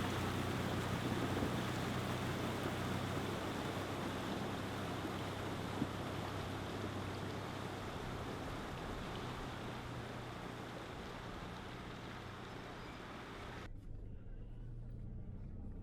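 4WD engine idling steadily under a loud, even rushing noise of water or wind. The rushing cuts off abruptly about fourteen seconds in, leaving the idle.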